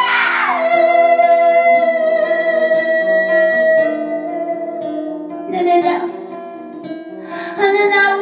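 A woman singing over acoustic guitar. Near the start her voice slides down onto a long note held for about four seconds; shorter sung phrases come in again after about five and a half seconds, with plucked guitar notes underneath throughout.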